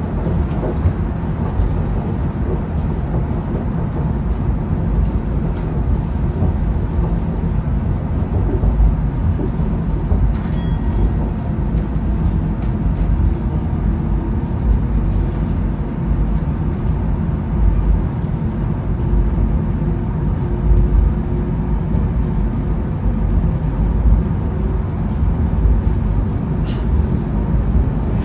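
Chiba Urban Monorail suspended monorail car, heard from inside: a steady low rumble, with a faint hum that comes in about a third of the way through and fades near the end.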